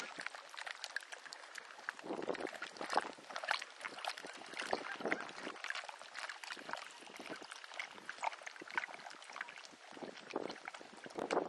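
Irregular crackling and light lapping from a drifting pan of melting, broken-up river ice and the water around it: many small sharp ticks and clicks with no steady tone.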